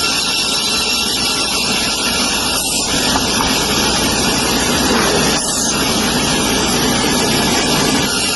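Woodworking machinery running steadily: a loud, even mechanical noise that does not pause.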